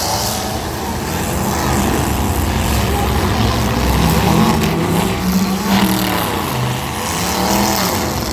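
Small demolition-derby cars' engines running and revving, the engine notes rising and falling again and again as the cars drive and push against each other.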